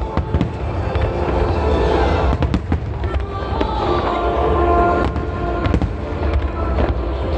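Aerial fireworks shells bursting in a rapid, irregular string of sharp bangs and crackles, with music playing alongside.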